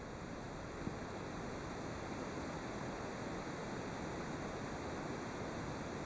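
Steady, even background hiss with no distinct event in it, only a faint tick about a second in.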